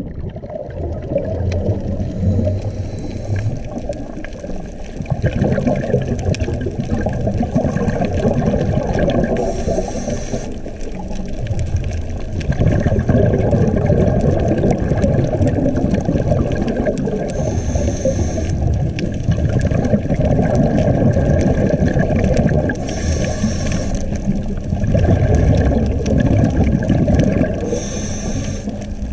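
Scuba diver breathing through a regulator underwater: five short hisses of inhaling, each followed by several seconds of rumbling, bubbling exhale.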